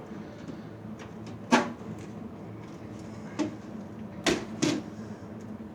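A few sharp clicks and knocks, about four, the last two close together, from parts of a Dell PowerEdge 4300 server being handled and pulled apart while it is dismantled for scrap.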